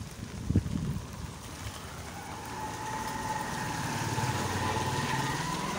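A motor vehicle's engine running, with a steady whine that slowly rises in pitch from about two seconds in as it revs up.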